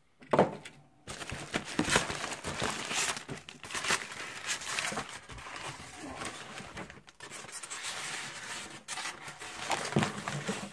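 Plastic wrapping and packing foam being pulled, torn and crumpled by hand: a continuous run of irregular crinkles, rips and scratches. A sharp knock comes just after the start.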